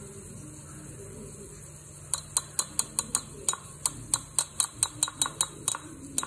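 Small metal spoon tapping again and again against the rim of a miniature aluminium pot, knocking tomato-and-chilli paste off the spoon into the pot. About twenty quick, sharp clicks, roughly four a second, start about two seconds in.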